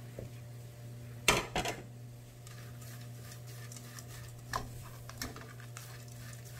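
A sharp clink of kitchenware about a second in, then a wooden spatula stirring anchovies and sliced almonds in a frying pan, with a few light knocks against the pan, over a steady low hum.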